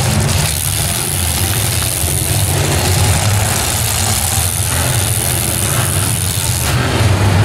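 Engines of many demolition-derby pickup trucks, vans and SUVs running together in a loud, steady din.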